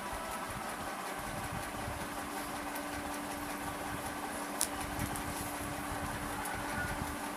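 Steady background noise with a low, even hum that comes in about a second and a half in, and a single sharp click about four and a half seconds in.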